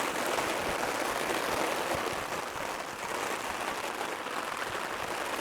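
Heavy rain falling on a Hilleberg Nammajt 3GT tent's flysheet: a dense, even patter of drops that eases slightly over the few seconds.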